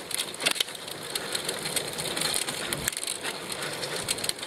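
Recumbent bicycle tyres rolling over a rough gravelly trail surface, giving a steady crunching crackle of many small clicks.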